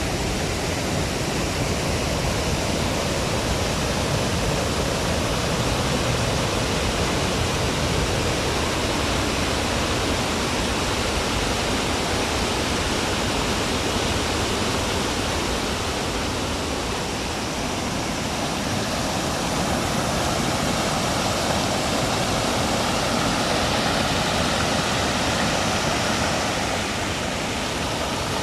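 Waterfall: the steady rush of falling water, with no break or change.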